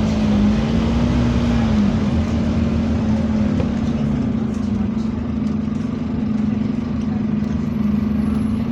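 Scania double-decker bus engine running with a steady drone. Its pitch rises slightly and falls back in the first couple of seconds, then holds even.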